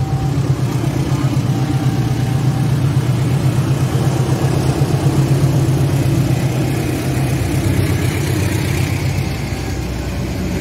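CC206 diesel-electric locomotive passing close by, its diesel engine running with a steady low drone, then the rushing rumble of the passenger coaches rolling past on the rails. The last note of its horn cuts off right at the start.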